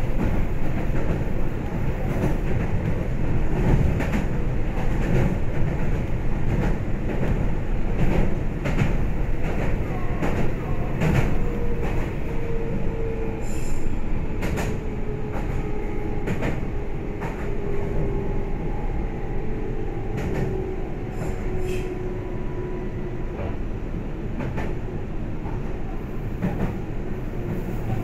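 Meitetsu electric train running, heard from inside the car: a steady rumble with scattered clicks from the wheels over rail joints. Partway through, a faint whine slides slowly down in pitch.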